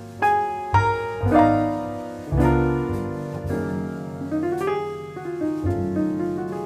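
Jazz ballad recording led by acoustic piano: struck chords and single notes that ring and decay, with a short rising run about four seconds in, over low bass notes.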